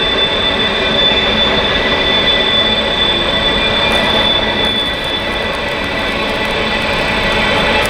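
Norfolk Southern open hopper cars rolling past on the rails in a steady, continuous rush of wheel and car noise, with a thin, steady high-pitched whine over it.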